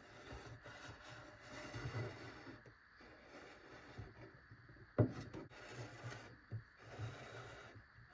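Faint rubbing and scraping of kitchen handling during salad preparation, with one sharp knock about five seconds in.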